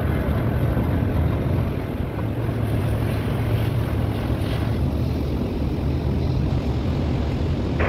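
An engine running steadily with a low rumble, mixed with wind noise on the microphone.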